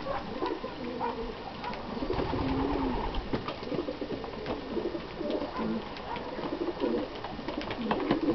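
Lovebirds pecking and cracking seed on a wooden feeding tray, with frequent sharp clicks of beaks on seed and wood, over repeated low-pitched bird calls.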